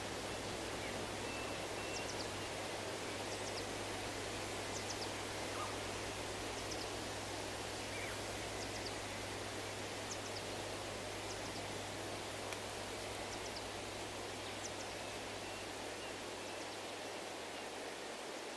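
Steady breeze rustling through trees, with small birds giving short, high chirps every second or so.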